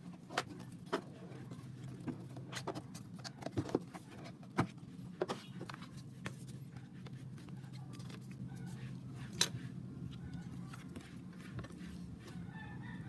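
Album packaging being handled during an unboxing: irregular small clicks and taps of cardboard and plastic over a steady low hum.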